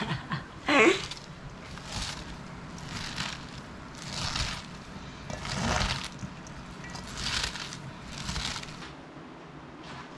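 Hands squeezing and kneading shredded raw cabbage in a stainless-steel bowl: a wet, crunchy squelch about every second and a half as the cabbage starts to give up its juice for sauerkraut. A short burst of laughter about a second in.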